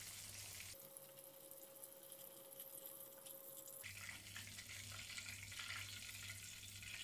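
Faint sizzling of cornstarch-coated pork ribs deep-frying in oil, over a low steady hum.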